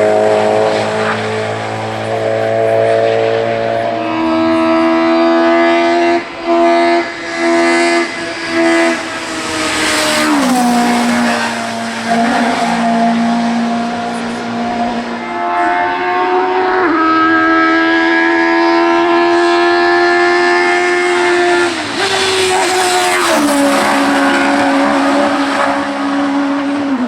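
Hill-climb race car engine running at high revs, holding steady pitches for several seconds at a time and stepping sharply down or up in pitch between them. About six to nine seconds in, the sound cuts out briefly three times.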